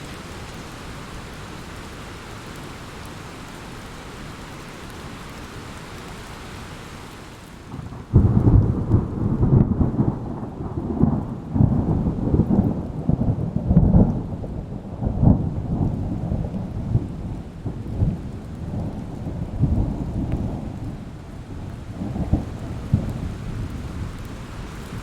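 Thunderstorm: steady rain hiss, then about eight seconds in a thunderclap breaks suddenly and rolls on in repeated deep rumbles for some fifteen seconds before fading back under the rain.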